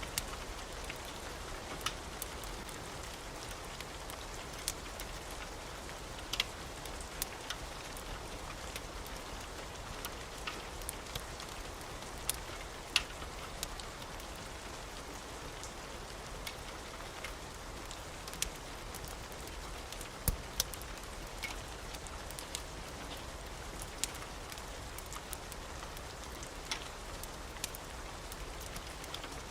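Steady rain falling, with a fireplace crackling: scattered sharp pops and ticks over the even hiss of the rain, a few pops louder than the rest.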